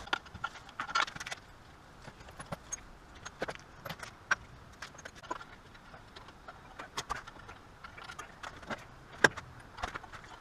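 Irregular light metallic clicks and clinks as a piece of wire is worked and looped around the split flange repair clamp on the exhaust downpipe, with one sharper click a little after nine seconds in.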